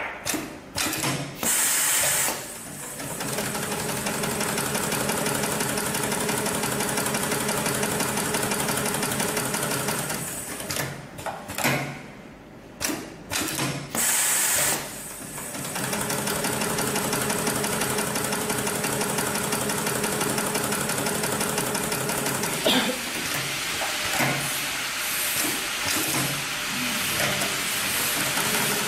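GLK700-6040 computer-controlled industrial pattern sewing machine stitching at a fast, even rate. It breaks off twice, about two seconds in and about halfway through, each time with a short burst of hiss, then starts stitching again.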